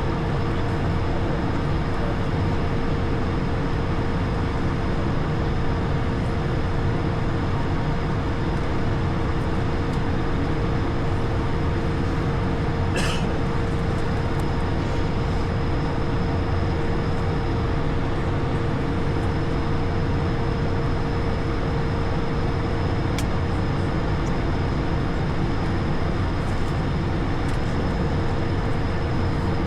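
Steady cockpit noise of an Airbus A220 on the ground, engines and air systems running with a constant hum. There is one brief sharp chirp about 13 seconds in and a faint click near 23 seconds.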